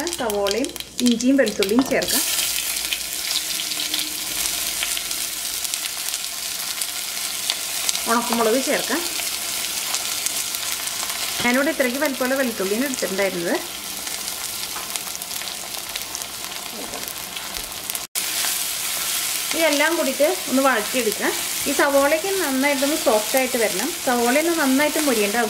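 Onion, garlic, ginger, dried red chillies and whole spices sizzling and frying in hot oil in a pan while a spatula stirs them. The sizzle jumps up about two seconds in and holds steady, with a brief dropout about eighteen seconds in.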